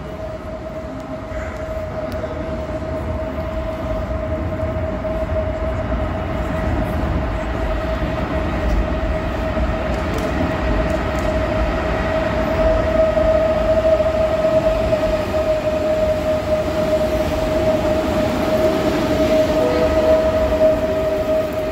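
Pesa Dart ED161 electric multiple unit pulling into the platform, its rumble growing steadily louder as it comes alongside, with a steady high whine throughout.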